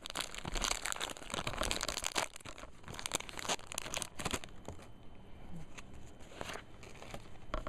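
Foil wrapper of a Pokémon booster pack crinkling and tearing as it is opened and pulled off, a dense crackle for the first four seconds or so. It then drops to a quieter, sparser rustle as the cards are taken out and handled.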